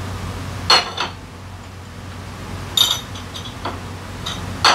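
Several sharp metallic clinks and taps as the metal parts of a Honda Forza 350 scooter's CVT drive pulley are handled and fitted by hand. Three of them are loud: about a second in, near three seconds, and at the very end. A steady low hum runs underneath.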